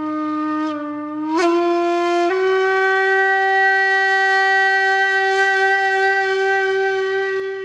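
A reedy wind instrument plays long held notes: a low note that bends up about a second and a half in, then steps up to a higher note held steady and fading near the end.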